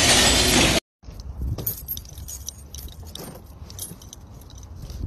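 A bunch of keys jangling on a ring as a key is worked at a car's door lock, with small metallic clicks and scrapes. It is preceded by under a second of loud, steady rushing noise that cuts off abruptly.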